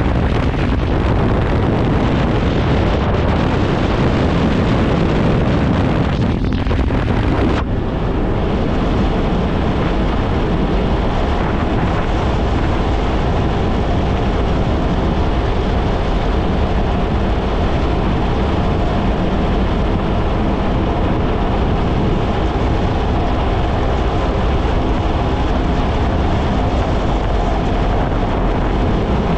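Kawasaki Ultra 160 LX-S jet ski's naturally aspirated four-cylinder engine running steadily at cruising speed, with wind buffeting the microphone.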